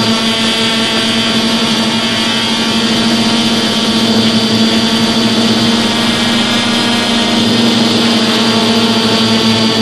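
DJI F450 Flame Wheel quadcopter's four brushless motors and propellers running steadily in flight, a loud even buzz held at one pitch, picked up close by a phone riding on the frame.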